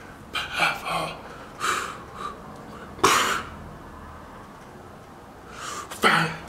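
A man's voice in short, breathy, wordless bursts: several in the first two seconds, a sharp one about three seconds in, and another near the end.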